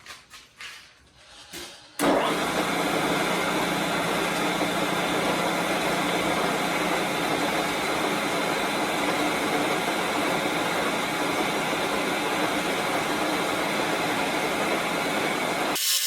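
Milling machine running, its carbide shell mill at about 850 RPM facing the steel base of an anvil: a loud, steady, even machining noise that starts suddenly about two seconds in and cuts off abruptly near the end. Before it starts there are only a few faint clicks.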